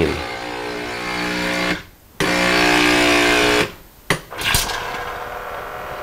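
Breville-Nespresso Creatista Plus running its automatic steam-wand self-clean after frothing milk. The pump hums with steam hissing from the wand in two runs of about a second and a half each, briefly broken in between. A click follows, then a softer, steady hiss.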